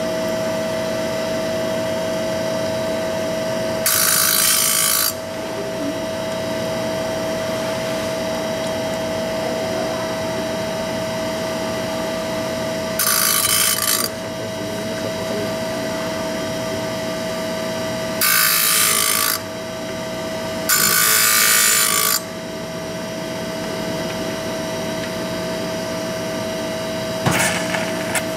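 Arterki MF127B saw blade grinding machine running, its grinding wheel spinning with a steady whine. Four times, a harsh hissing grind of a second or so sounds as the wheel works the teeth of a circular saw blade. There is a short sharp clack near the end.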